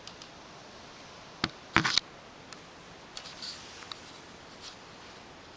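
A few sharp clicks over a quiet room hiss: one click, then a louder quick cluster of clicks about two seconds in, followed by a few faint ticks.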